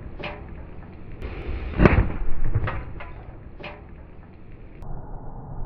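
A pressure cooker full of burning rubbing alcohol exploding after a .50-cal incendiary shot: a loud boom about two seconds in, followed by several sharper cracks and pops. Its lid is blown off by built-up pressure.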